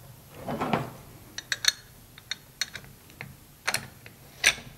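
Small metal parts being handled as a grinding wheel and flange are fitted onto the spindle of a DeWalt DCG412B cordless angle grinder: a short rustle, then a series of sharp clicks and clinks.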